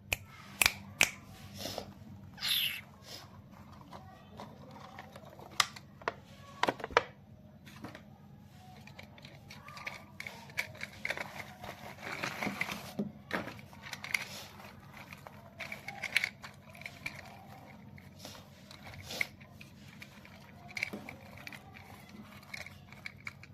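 Handling sounds of a toy car and its packaging: sharp plastic clicks and knocks, with a brief rustle about two and a half seconds in, over a low steady hum.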